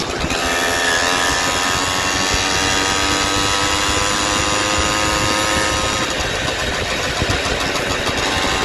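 Small engine of a motorized bicycle running at riding speed. Its pitch climbs steadily over the first five or six seconds, then levels off.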